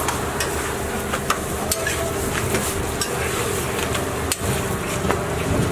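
Frankie flatbreads sizzling on a large flat griddle, with a metal spatula clicking and scraping against the hot plate several times.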